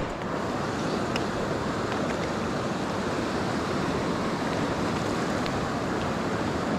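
Steady rush of a river running high after a night of heavy rain, with a few faint clicks.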